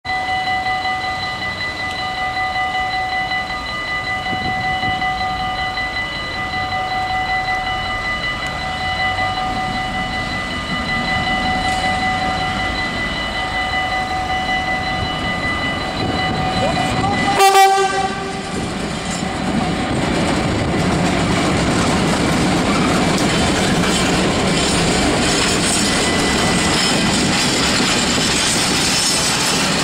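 Level-crossing warning bells ringing steadily while an EMD Class 66 (JT42CWR) diesel locomotive approaches, then a short blast of its horn about halfway through, the loudest sound. After it, the locomotive's two-stroke V12 diesel engine and the freight wagons rolling over the rails grow louder as the train passes.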